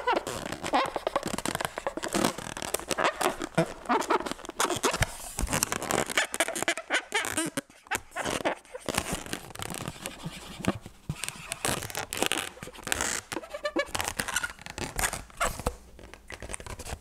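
Latex modelling balloon rubbing and squeaking in irregular short bursts as it is handled and twisted.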